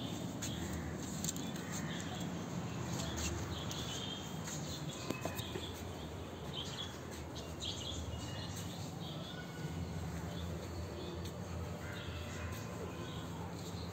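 Outdoor ambience: a steady low rumble with scattered short, high bird chirps.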